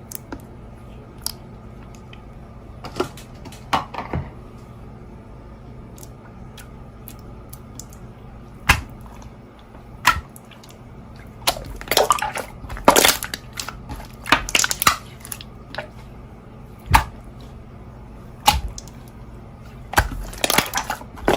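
Slime being handled: scattered sharp pops and crackles, with denser runs of crackling around the middle and near the end.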